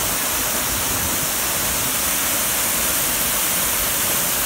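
Little Mashel Falls' water pouring down the rock face close by: a steady rushing hiss.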